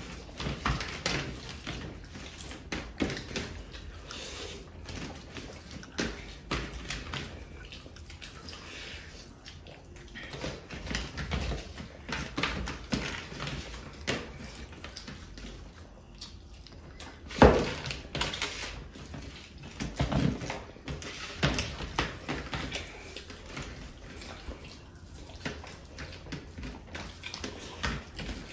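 Wet squishing and smacking of bare hands mashing rice into fish curry on steel platters, with eating noises and small clicks against the metal. One sharp, much louder knock about two-thirds of the way through.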